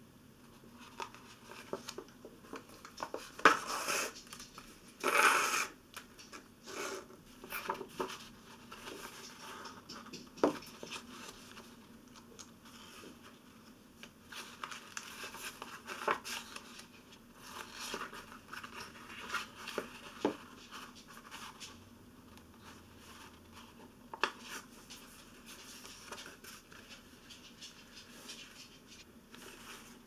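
Bookbinding sewing by hand: folded paper signatures and paper tape supports rustling, and the needle and linen thread scraping through the paper folds, with scattered light clicks and taps. The loudest rustles come in a cluster between about three and six seconds in.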